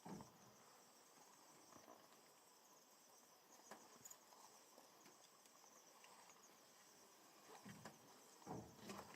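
Faint, steady high chirping of insects, with soft low thuds and rustles near the end.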